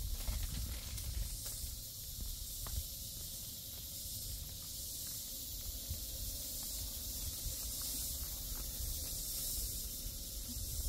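Jungle insects droning: a steady high-pitched hiss that swells and fades slightly, over a low wind rumble on the microphone.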